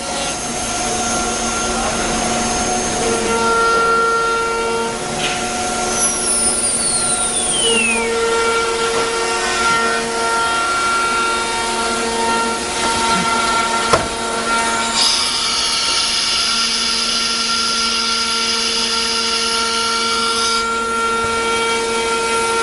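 CNC wood router machines running, with several steady whines from spindles and drives. About six seconds in, one high whine falls steadily in pitch as a spindle winds down, and from about fifteen to twenty-one seconds in a higher, rougher whine joins.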